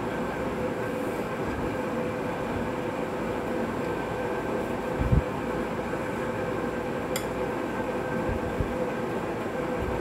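Steady mechanical hum with a few constant tones from a machine running in the room. There is a short low thump about five seconds in.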